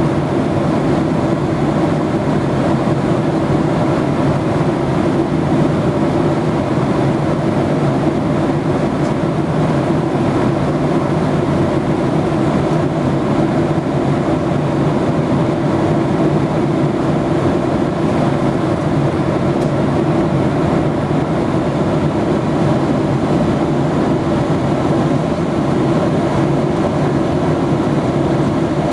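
Steady, loud cabin noise of a Ryanair Boeing 737 airliner in cruise: the hum of the jet engines and the rush of air over the fuselage, heard through the cabin window.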